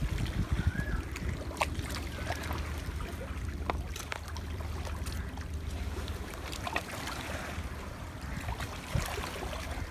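Wind rumbling on the microphone over water lapping at a rocky shore, with a few scattered clicks.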